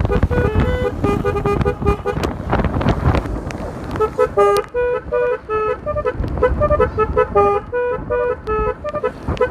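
Basuri telolet multi-tone horn on a motorcycle playing a quick melody of short stepped notes, over a low rumble that fades about four seconds in.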